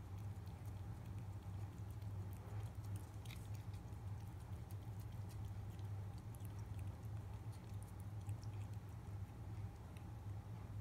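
Cat licking a paste treat from a squeeze tube: faint, quick wet tongue clicks and smacks over a steady low hum.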